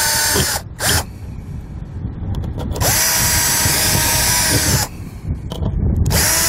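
Cordless drill boring small holes through an RV baggage compartment door, in three runs of a steady motor whine. It stops about half a second in, runs again for about two seconds from near three seconds in, and starts again around six seconds in.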